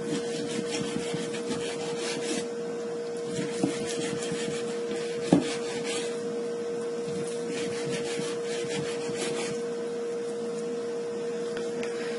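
A knife slicing firm, salt-cured salmon into thin slices on a cutting board: irregular rasping strokes and light taps of the blade on the board, with one sharper knock about five seconds in. A steady low hum runs underneath.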